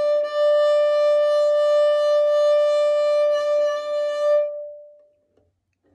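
Violin bowed on one steady high note in a sounding-point exercise, the bow moved between the bridge and the fingerboard. The note stops about four and a half seconds in and rings away briefly.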